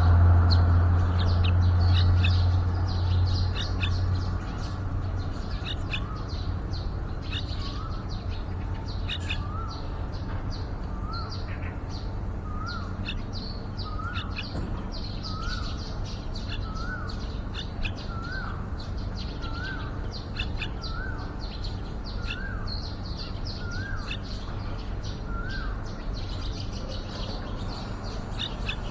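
Yellow-vented bulbuls calling at the nest: a short rising note repeated a little more than once a second for most of the stretch, over a steady scatter of sharp, high chips. A low hum fades out in the first few seconds.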